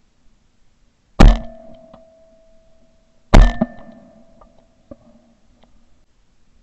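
Shotgun fired twice at a flying duck, the two shots about two seconds apart, recorded from a camera mounted on the gun barrel; each blast is followed by a short ringing tone.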